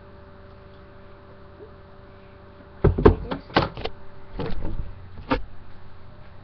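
A faint steady hum, then about three seconds in a run of knocks and clatters as hard objects are handled and set down, about half a dozen sharp ones over the next few seconds.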